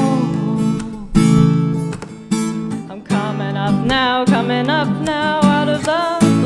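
Acoustic guitar strummed steadily, with a voice coming in about halfway through and singing a wavering melody without clear words over it.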